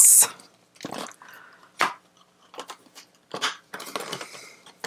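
Small clear plastic box of washi tape rolls being handled: scattered plastic clicks and taps, then a longer crinkly rustle near the end.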